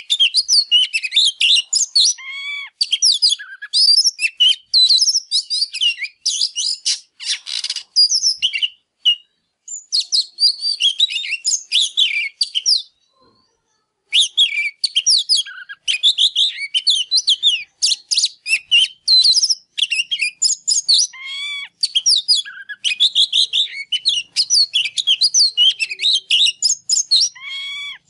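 Oriental magpie-robin singing a fast, varied song of high whistles and chirps in rapid, unbroken phrases, with one pause of about a second near the middle and a brief harsh rasp about a quarter of the way in.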